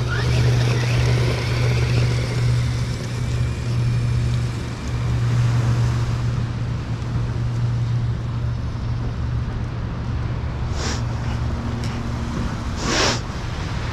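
Steady wind rumble on the microphone with surf behind it, and in the first couple of seconds the short rising whine of an electric RC monster truck's motor. Two brief bursts of hiss come near the end, about two seconds apart.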